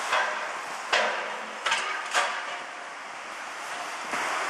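Four sharp knocks in the first two and a half seconds over a steady hiss, from a wrecked steel frame being cut apart with a long-handled gas cutting torch.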